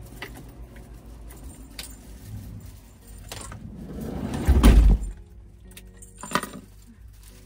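A rumble swells for about a second into a heavy, low thud, and a sharp click follows about a second and a half later, with small clinks and soft background music.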